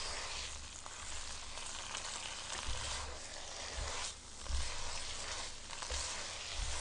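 Ramen noodles in sauce sizzling in a hot pot as they are stirred with chopsticks: a steady frying hiss with a few dull low bumps.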